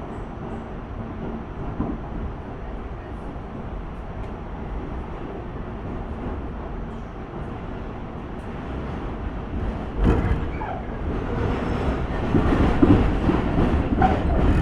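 Interior of a moving subway car: a steady low rumble of wheels and running gear. About ten seconds in it turns suddenly louder and harsher, with rattling.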